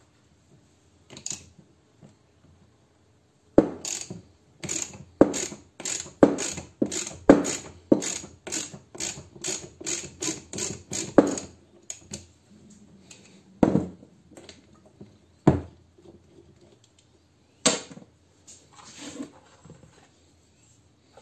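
Ratchet wrench worked in quick, even strokes, clicking about twice a second for several seconds, then a few single clicks.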